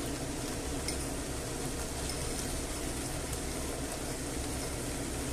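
Tomato rice simmering in a frying pan with a steady hiss, while frozen peas are poured in almost silently.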